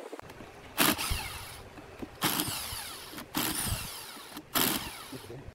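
Power drill-driver running wood screws through a metal lathe faceplate into a turned wooden blank, in four short runs of about a second each, its pitch sliding down during the runs.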